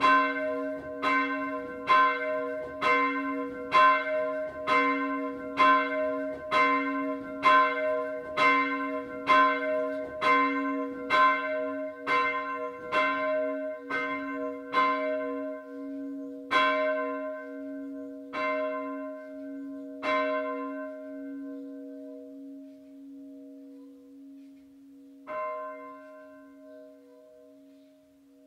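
Glocke 2, a 290 kg bronze church bell with nominal c'', cast in 1689 by Abraham Sievert of Görlitz, swinging and struck by its clapper about once a second. In the second half the strokes space out and stop as the bell swings down, with one last stroke near the end while the hum tone dies away.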